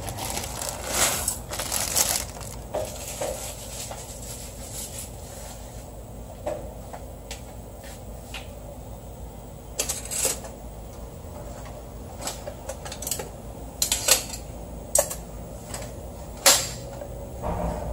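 Crinkling of a plastic instant-noodle wrapper as the dry noodle block is tipped into a stainless steel pot of water, over the first few seconds. After that a low steady hum with scattered sharp clicks and taps.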